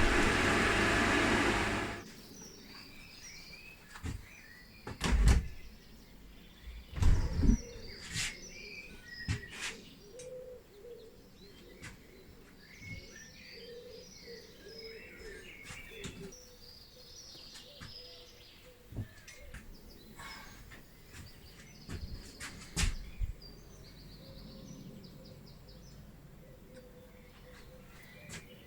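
A loud steady machine noise cuts off about two seconds in. It leaves birds chirping in the background, broken by scattered sharp knocks and clatter, loudest a few times in the first half and once near the end.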